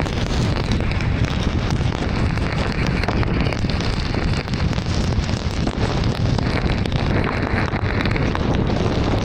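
Steady rush of heavy rain on a moving car and its tyres hissing on a flooded road, with fine pattering of drops throughout.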